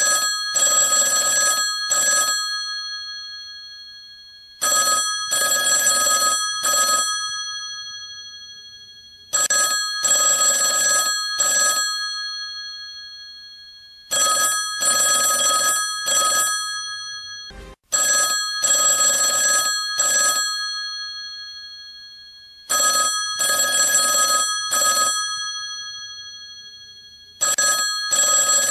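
Old-style electromechanical telephone bell ringing: rattling rings of about two seconds each, repeating roughly every four to five seconds, with the bell tones fading away between rings. About seven rings.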